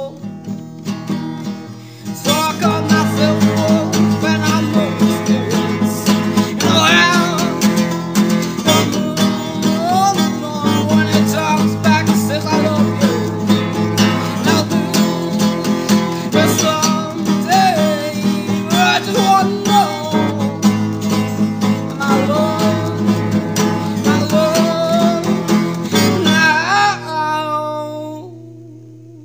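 Acoustic guitar music, picking up about two seconds in after a brief lull, playing steadily, then fading out near the end.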